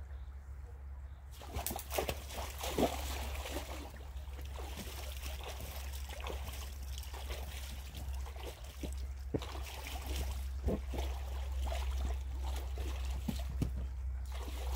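Air escaping from an inflatable vinyl dragon through its open Boston valves: a sputtering hiss that starts suddenly about a second and a half in, with small crackles as the vinyl slowly settles.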